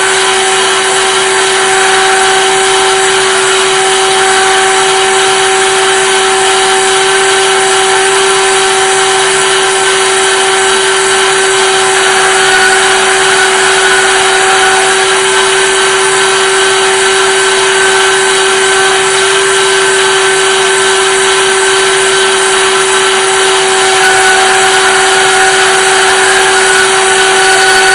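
Name Jewelry Solution 2 CNC machine's spindle running steadily with a constant whine while cutting a name into the outside of a ring.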